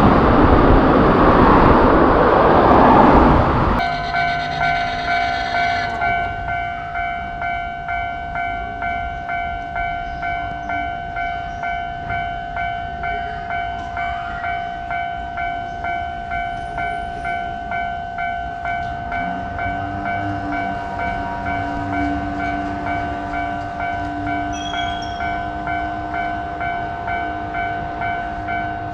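A train passing close by with a loud rush for the first few seconds, cut off suddenly. Then a Japanese railroad crossing's electronic warning bell rings in a steady, repeating rhythm, joined about two-thirds of the way through by a low hum that rises slightly in pitch.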